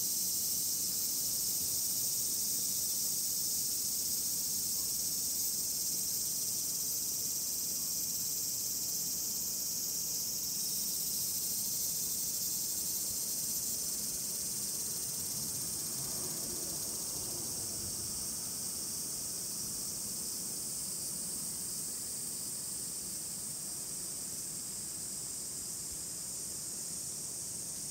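Chorus of singing insects: a steady, shrill, high-pitched hiss that fades a little toward the end.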